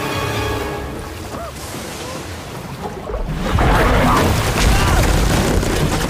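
Film sound effects of a giant crocodile striking a rescue boat. Shouting voices and dramatic score come first, then about three seconds in a heavy, deep boom breaks in and a loud rumble carries on.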